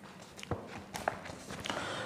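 Faint, irregular taps and knocks, about five in two seconds, from a person shifting about and handling a paperback book.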